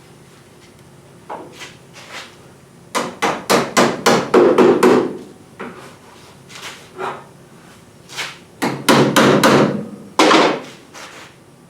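Hammer striking a steel patch panel in quick runs of blows, tapping it into place in a truck's cab roof. There are two runs, one about three seconds in and one near the end, with a few single knocks between.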